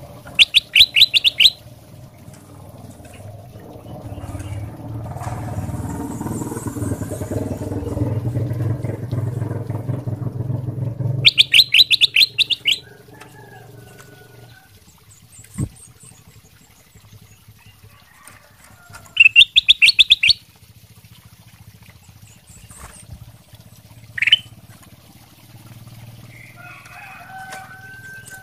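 Ruby-throated bulbul (kutilang emas) giving three loud bursts of rapid chattering notes, about a second each, plus a single sharp chirp later on. Under the first half runs a low rumble lasting several seconds.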